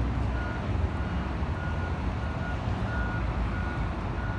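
An electronic beep repeating steadily, about three beeps every two seconds, over a continuous low rumble.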